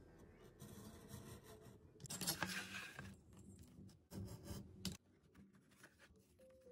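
Snap-off utility knife blade cutting through thick grey cardboard along a steel ruler: scratchy scraping strokes, the loudest about two seconds in and a shorter one about four seconds in.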